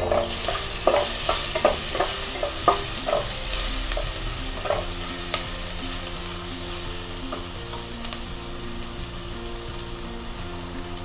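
Chopped onion, garlic, green chillies and dried red chillies sizzling in hot oil in a nonstick kadai as they are sautéed. A spatula stirs them, clinking and scraping against the pan several times in the first five seconds.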